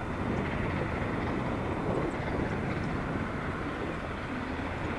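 Distant steam locomotive working a train, heard as a steady low rumble.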